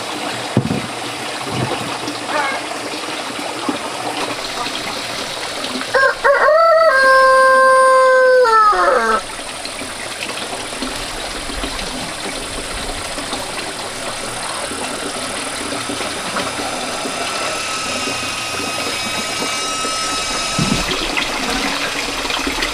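A rooster crows once, about six seconds in: a long, loud call held on one pitch that falls away at the end. It sounds over a steady hiss of running water.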